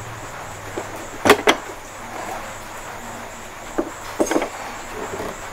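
Sharp plastic clicks and knocks as a power cord's plug is handled and pushed into the socket on the back of an electric sewing machine: two clicks about a second in, and a few more around four seconds in.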